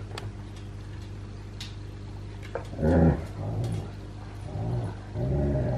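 Dogs play-fighting: one dog growls in four short grumbling bursts starting about halfway in, the first the loudest.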